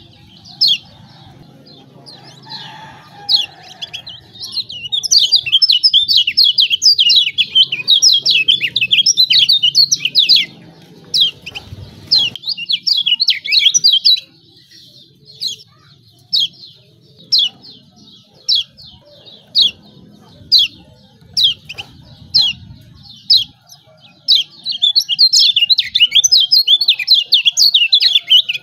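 Kecial kuning white-eye giving rapid, sharp 'ciak ciak' chirping calls in dense, excited runs, thinning to single chirps about a second apart in the middle and picking up into a fast run again near the end.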